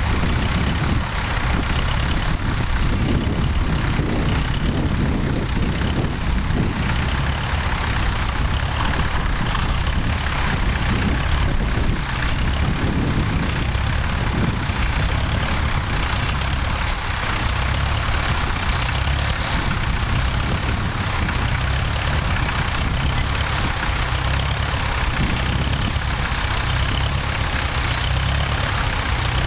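Tractor engine running steadily at a low, even idle.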